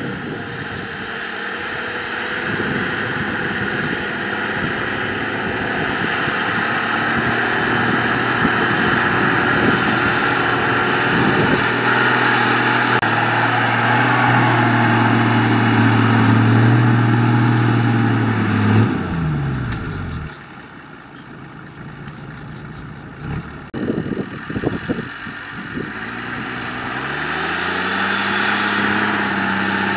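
Engine of a homemade farm truck running while hauling a full load of rice sacks. The engine note climbs and holds about halfway through, drops away a little past halfway, then picks up again and settles into a steady run near the end.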